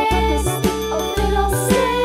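Children's background music: a melody over bass notes that change about twice a second.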